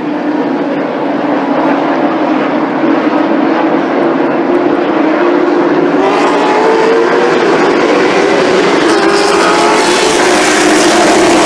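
A field of late model stock cars with V8 engines running on an oval track, many engines droning together. The sound grows louder and brighter after about six seconds as the pack comes nearer.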